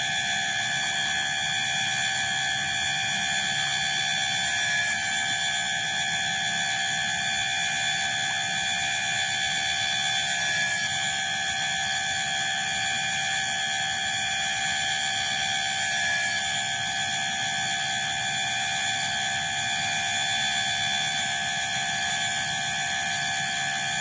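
Chorus of night insects in a rice paddy: a steady, unbroken high-pitched drone made of many tones at once, holding the same level throughout.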